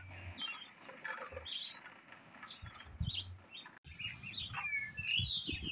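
Small birds chirping: many short, high calls scattered through, coming thicker in the second half, with a few quick falling notes.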